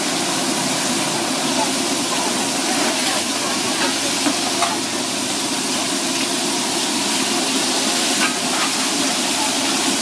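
Pieces of mud crab frying in hot oil in a wok: a steady, loud sizzle, with a few short clinks of a metal spatula stirring them against the wok.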